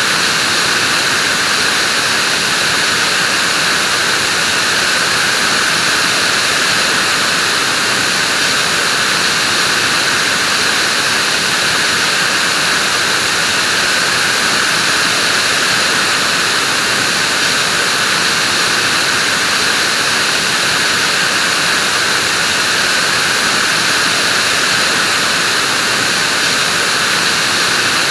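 Vacuum cleaner running steadily: an even, unbroken hiss with no change in pitch or level.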